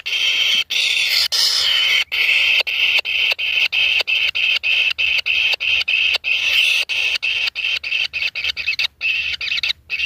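Kingfisher nestlings calling continuously: a steady, high begging chatter broken by short gaps about three times a second.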